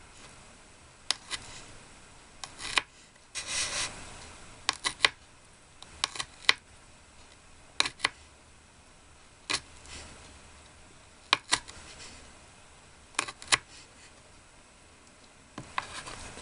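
Light clicks and taps of miniature kitchenware being handled, irregular, about one every second or two, with a short scraping rustle about three and a half seconds in.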